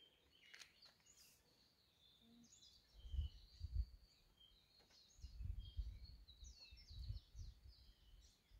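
Faint, high chirping of small birds in the background, with irregular bursts of low rumble on the microphone about three seconds in and again from about five to eight seconds.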